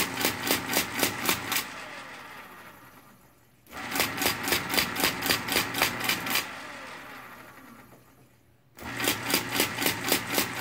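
Marchant EEG9 electric calculator running its carriage shift three times: the induction motor hums while the carriage steps along with a rapid train of mechanical clicks, about six a second. After each burst of two to three seconds the motor winds down.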